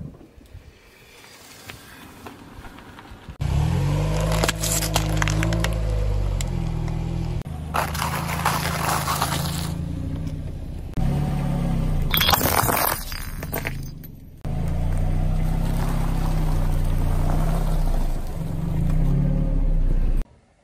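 A car tyre rolling slowly over and crushing brittle foods such as wafers and sandwich cookies: crackling and crunching over a low steady hum. The sound changes abruptly at several cuts.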